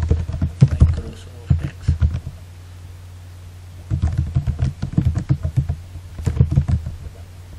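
Computer keyboard being typed on in two bursts of key clicks, the second starting about four seconds in, over a steady low hum.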